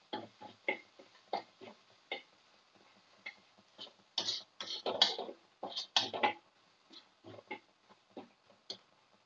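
A metal spatula scraping and knocking against a wok as chopped aromatics are stirred in a little oil, in quick irregular strokes. The strokes come thickest and loudest in the middle.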